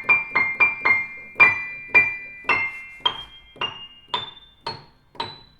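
Solo piano music on a Blüthner grand: a line of single high notes, quick at first, then slowing to about two notes a second in the second half.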